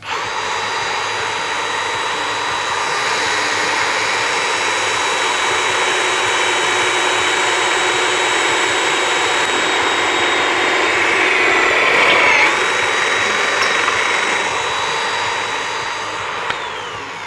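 Milwaukee M18 FUEL cordless magnetic drill boring a hole through steel with an annular cutter: a steady high motor whine over a grinding cutting noise, growing louder to about twelve seconds in. Near the end the whine falls in pitch as the motor spins down.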